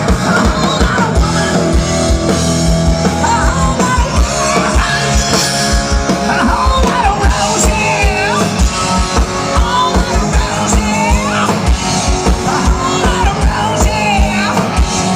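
Live rock band playing, with a fast, driving drum beat under guitars and a singer.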